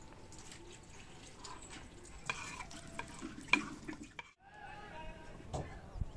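A spoon stirring and scraping in a cooking pot, with a few sharp clinks, the sharpest a little past halfway.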